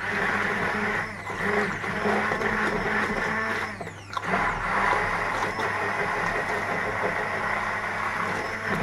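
Electric blender running steadily, puréeing chickpeas and onions with stock into a sauce, with brief dips in its sound about a second in and about four seconds in.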